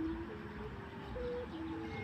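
Sanu kite hummers droning in strong wind: steady humming tones that hop between a few pitches every half-second or so, with a higher steady tone above them and wind rumble underneath.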